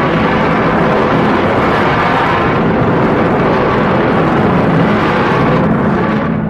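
Ghost Godzilla kaiju roar sound effect: one long, harsh, rumbling roar that begins to fade near the end.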